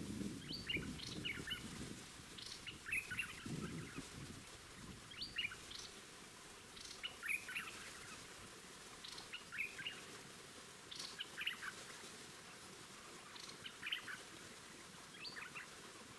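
Streak-eared bulbuls calling at a trap cage: short phrases of sharp, quick chirps repeated every second or two. A low rumble underlies the first couple of seconds and comes again briefly about three and a half seconds in.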